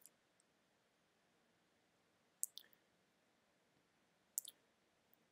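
Computer mouse clicking over near silence: three pairs of short, sharp clicks about two seconds apart.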